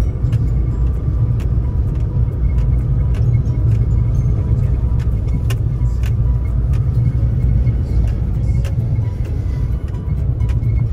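A 4x4 vehicle driving on a rough offroad track: a steady, heavy low rumble from engine and road, with frequent small knocks and rattles. Music plays faintly underneath.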